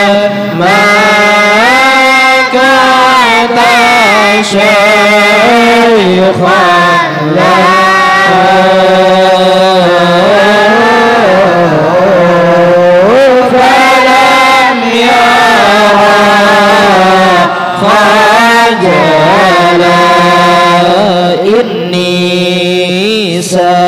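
A man singing a syair, a melismatic Arabic praise poem, through a microphone. His voice slides up and down through long held notes, with short breaks between phrases and no drumming.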